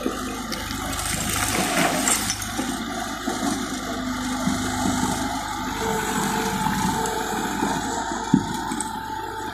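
Kubota skid-steer loader working, its newly replaced engine running steadily under load with a few held whining tones. Over it runs a steady rushing noise of rubble and gravel under the wheels and bucket.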